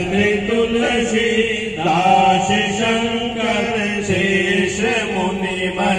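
A group of devotees chanting a Hindu devotional recitation to Hanuman together in a sung, melodic chant.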